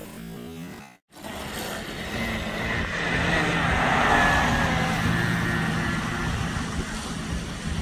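Homemade fiberglass RC speedboat running at speed on its Turnigy 3664 2600kv brushless motor on 4S LiPo: a thin motor whine over the hiss of spray. It starts about a second in, grows to a peak around four seconds in, then fades as the boat runs away.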